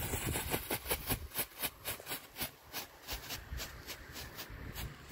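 Disco-Blitzer strobe firework flashing on the ground, a quick train of sharp pops, about three or four a second, one with each flash.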